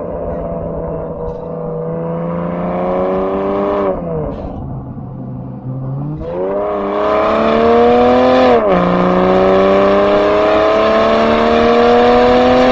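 BMW X6 xDrive40i's turbocharged straight-six through an aftermarket TNEER cat-back exhaust, accelerating under load. The exhaust note climbs in pitch and drops sharply at gear changes about four and nine seconds in, then climbs again, getting louder as it goes.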